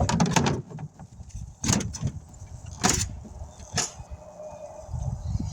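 Compressed air hissing in short bursts into a freshly patched car tire as it is aired up: a quick cluster at the start, then three single bursts about a second apart, over a low rumble.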